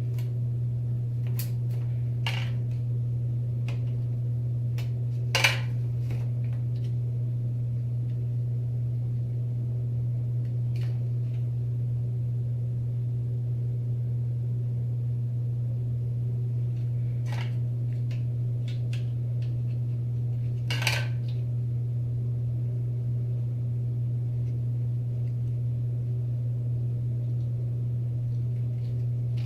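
Steady low electrical-style hum with a few small clicks and taps of small items being handled. The sharpest tap comes about five seconds in and another about twenty-one seconds in, with fainter clicks early and around seventeen seconds.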